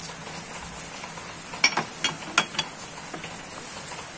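A few sharp clinks of a kitchen utensil or dish against the cooking pot, about four in quick succession near the middle, as diced carrots are tipped into the stew, over a low steady background hiss.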